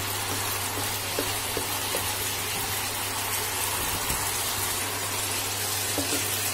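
Spiced masala gravy with a little water sizzling and bubbling steadily in a frying pan on an induction cooktop, under a steady low hum.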